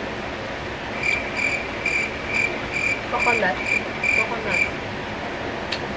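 Cricket chirping: about nine evenly spaced high chirps, roughly two and a half a second, starting about a second in and stopping a little before five seconds, over a steady background hiss.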